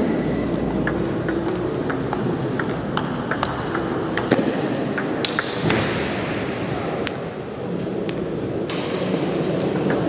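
Table tennis ball clicking off bats and the table in rallies, a run of short sharp ticks, over steady background noise.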